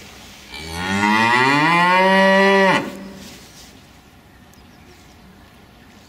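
A Holstein-Friesian cow mooing once, a single long low moo that rises in pitch at the start, then holds steady and breaks off sharply about halfway through.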